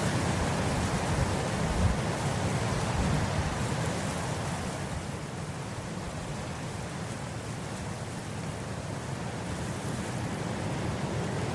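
Wind blowing across grass: a steady rushing noise with an uneven low rumble. It eases off in the middle and builds again near the end.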